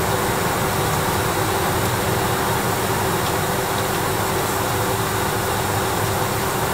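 Steady machine drone with a constant low hum and a faint steady tone, unchanging throughout.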